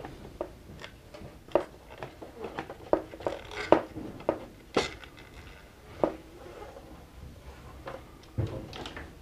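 Irregular clicks and small knocks of hands feeding a toothed carriage belt through the channel of an HP Designjet plotter's plastic print-head carriage, with the carriage parts rattling as they are handled.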